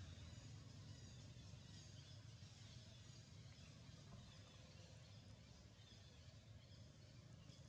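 Near silence: faint outdoor ambience, a low steady rumble with scattered faint bird chirps.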